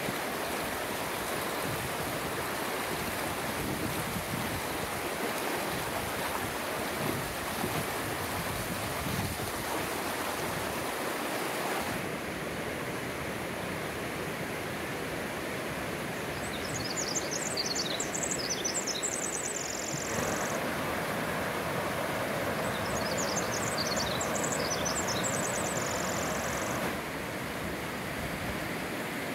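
Mountain creek rushing steadily over rocks, its tone shifting slightly a few times. A high, rapid twittering that ends in a held note comes twice in the second half.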